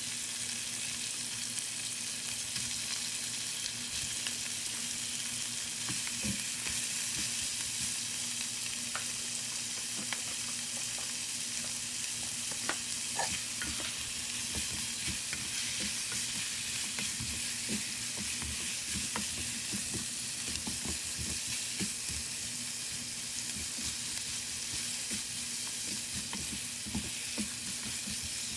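Chicken pieces sizzling in hot oil in a nonstick wok with sautéed ginger, onion and garlic, stirred with a silicone spatula that makes frequent small scrapes and taps against the pan over a steady sizzle.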